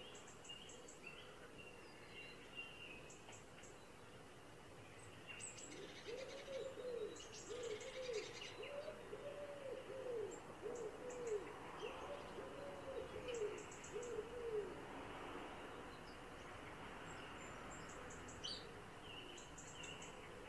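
A bird's low call repeated about nine times, a little under a second apart, for about nine seconds from six seconds in. Faint higher bird chirps and short thin high ticks sound at times throughout.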